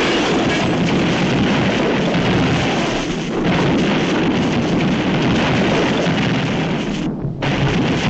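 Cartoon explosion and crashing-debris sound effects over loud orchestral music, a dense continuous rumble with a short break about seven seconds in.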